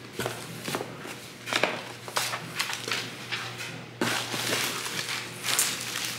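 Cardboard shipping box being opened by hand: its flaps are pulled back and scrape and rustle in a series of uneven strokes. Near the end the plastic-wrapped contents crinkle as they are lifted out.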